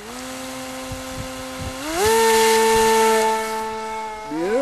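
RC foam model plane's motor and propeller running at low throttle, then throttled up about two seconds in to a louder, higher whine for the hand launch. The pitch eases and then starts to waver near the end as the plane flies off.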